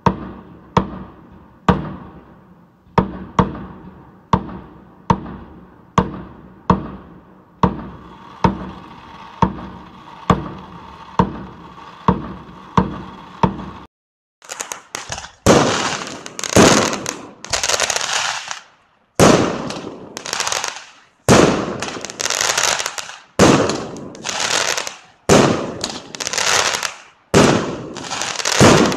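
Aerial fireworks going off: a steady run of single bangs, a little more than one a second, each trailing off in an echo. After a brief break about halfway through comes a denser stretch of longer crackling bursts, one after another.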